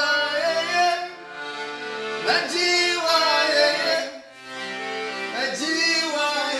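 Piano accordion playing held chords that change every second or two.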